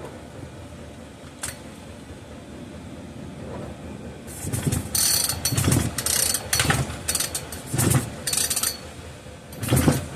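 Recoil starter of a Poulan Farmhand 2900 chainsaw pulled about five times in a row, each pull a short rasp of the rope and pawls as the engine turns over without firing: the ignition is giving no spark. The short rope makes each pull brief.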